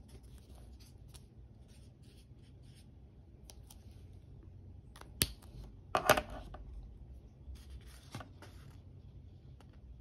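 Felt brush-pen tip scratching short strokes on a paper swatch card, then a sharp click and a louder clatter of plastic pens on the desk about five to six seconds in, with paper rustling a little later.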